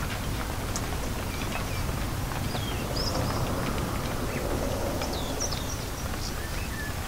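Steady rain ambience with scattered drips, and a bird chirping in short, high calls, several of them in the second half.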